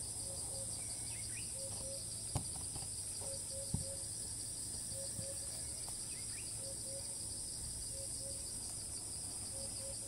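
Steady high-pitched drone of cicadas in the surrounding trees, with a faster pulsing insect trill just beneath it. A bird's low double note repeats about once a second, and two light knocks come at about two and a half and four seconds in.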